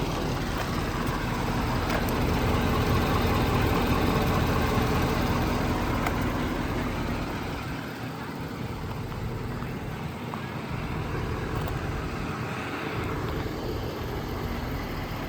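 The 6.7 Power Stroke V8 diesel of a 2013 Ford F550 service truck running steadily. It gets a little louder a couple of seconds in and eases off again around eight seconds.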